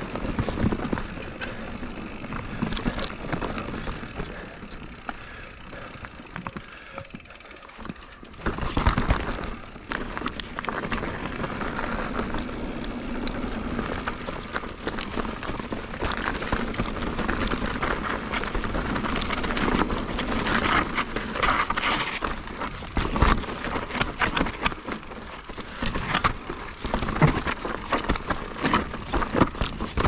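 Full-suspension 29er mountain bike riding down a rocky dirt trail: tyres rolling over dirt, loose stones and rock slabs, with the bike rattling and knocking over rock steps. The rolling noise eases off for a few seconds early on, then picks up again with frequent knocks.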